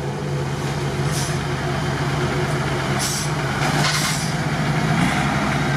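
Heavy off-road truck's engine running steadily as it drives through a muddy, water-filled rut, with short bursts of splashing water about one, three and four seconds in.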